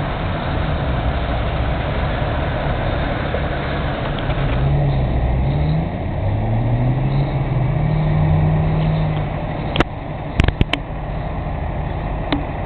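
Street traffic noise with a heavy vehicle's diesel engine pulling up through the gears: its note rises, drops at a gear change, then rises and holds. A few sharp clicks near the end.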